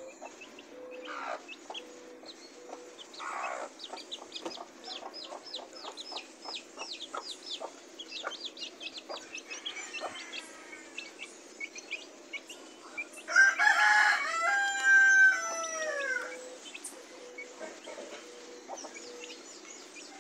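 Chicks peeping in quick, high, falling cheeps while they peck at rice on concrete, with many quick taps. About thirteen seconds in, a rooster crows loudly for about three seconds.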